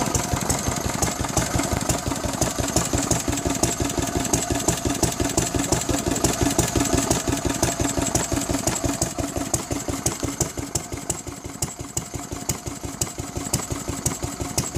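Lister D single-cylinder stationary engine running steadily, a quick even beat of firing strokes, somewhat quieter from about ten seconds in.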